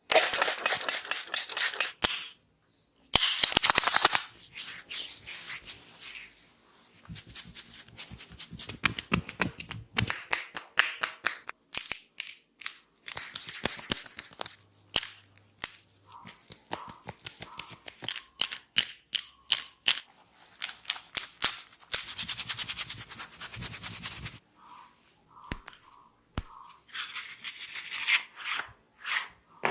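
Head massage with hair cracking: hands snapping and pulling the hair to make bursts of rapid crackling, with single sharp snaps and taps between. The densest, loudest crackling comes in the first few seconds.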